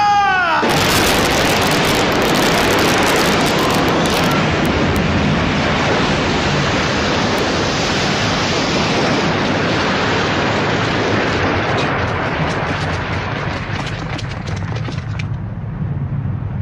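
Explosion sound effect of an anime battle: a held tone slides down in pitch and cuts off, then a loud rushing blast with crackling begins under a second in and dies down to a low rumble near the end.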